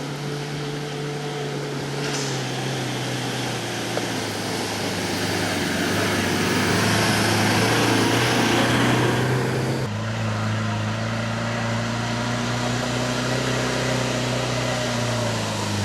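Off-road 4x4 vehicle's engine running at a steady pitch. A hissing rush builds over several seconds and stops abruptly about two-thirds of the way through. Near the end the engine's pitch drops.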